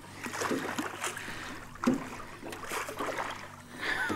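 Water splashing and sloshing beside a jon boat as a hooked blue catfish thrashes at the surface during the fight, with a louder thump about two seconds in.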